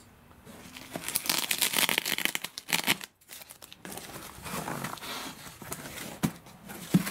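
Foil bubble-insulation wing bags crinkling and rustling as they are handled and pulled from a packed crate. The rustling is loudest over the first few seconds, pauses briefly about three seconds in, then goes on more lightly, with a couple of light knocks near the end.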